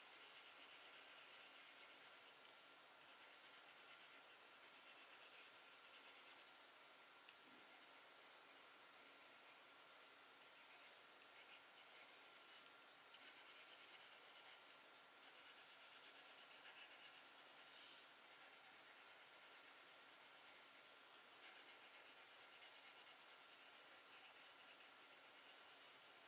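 Faint scratching and rubbing of a drawing tool moving over paper in uneven strokes, over a faint steady hum.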